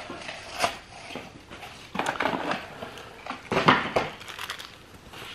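Cardboard and styrofoam packing crunching and rustling as a box is torn open and dug through by hand, in a few short bursts.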